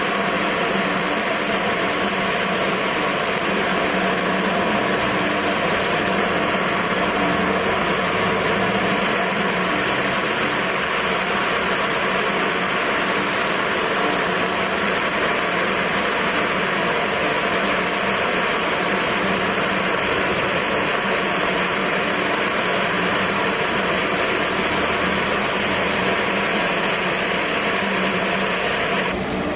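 Stick-welding arc burning steadily with an even crackling hiss, cutting off sharply near the end as the arc is broken.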